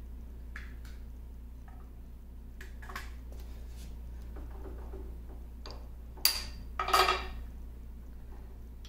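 Metal gear and bracket on the end of a 1950 LeBlond Regal lathe being handled by hand: a few light clicks, then two sharp metallic clanks with a short ring about six and seven seconds in.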